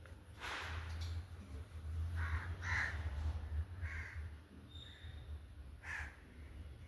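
Pet parrot giving a handful of short, harsh calls spaced a second or so apart, over a steady low hum.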